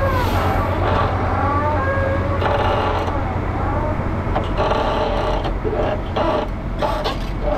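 An engine running steadily with a low, even hum, with some voices over it.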